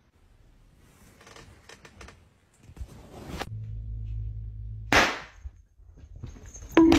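A handheld confetti cannon goes off with a single sharp pop about five seconds in. Another sudden loud sound starts near the end.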